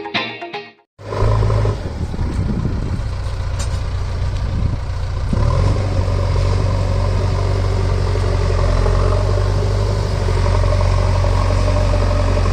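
Diesel engine of a JCB 3DX backhoe loader running with a deep, steady rumble, getting louder about five seconds in.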